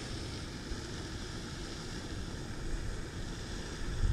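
Steady wind noise rumbling and buffeting on the microphone, with a brief bump just before the end.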